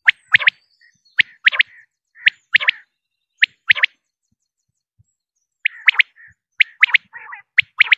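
Male common quail calling its three-note 'wet-my-lips' phrase: one sharp note, then a quick pair. The phrase repeats about once a second, with a pause of a second and a half midway.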